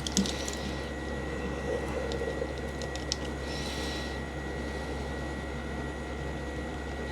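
A few faint clicks and taps from keys being pressed on a foldable Bluetooth keyboard, over a steady low background hum, with a brief soft rustle a little after three seconds in.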